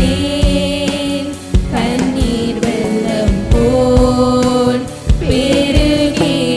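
Christian worship song: a voice holding long, wavering notes over instruments with a steady beat of about two strokes a second.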